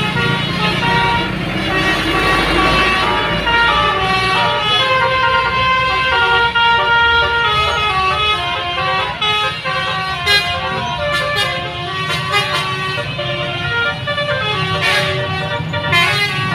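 Indonesian bus 'telolet' musical horn playing a tune of stepped notes that change pitch several times a second, over the low rumble of the bus engine.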